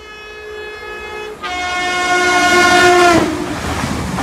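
ScotRail Class 380 electric multiple unit sounding its horn as it approaches: a short blast, then a longer one whose pitch drops about three seconds in as the train reaches the microphone. The rush of the train running past follows.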